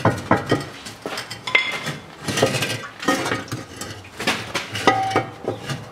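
Exhaust muffler clanking and rattling as it is worked off its hangers and taken down: an irregular string of metallic knocks and clinks, some ringing briefly.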